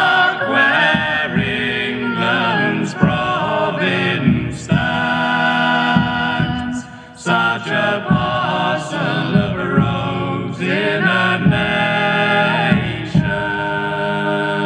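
A recorded folk song with singing voices, played through a two-way speaker cabinet driven by a small TPA3110 class D stereo amplifier board and picked up by a microphone in the room. The playback is clean, with no audible problems.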